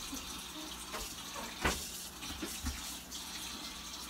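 Kitchen sink tap running steadily, with a couple of knocks from things handled at the sink.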